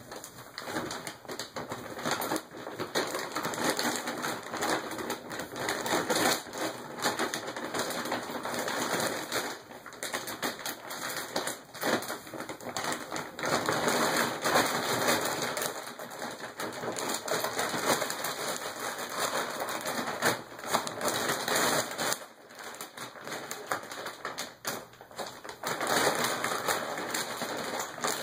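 Empty plastic dog food bag crinkling and rustling continuously as a dog burrows inside it and shoves it around, getting louder and softer as he moves.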